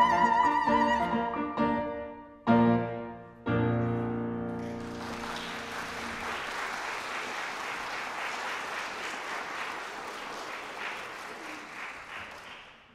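A soprano's held high final note ends about a second in, then the piano closes with two loud chords, and the audience applauds for several seconds, the applause fading out near the end.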